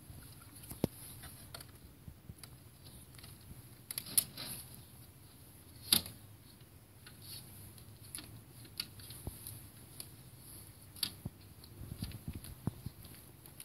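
Scattered sharp clicks, rattles and knocks of metal fittings as the loading ramp of a bicycle wheelchair trailer is handled and folded up and latched, the loudest click about six seconds in.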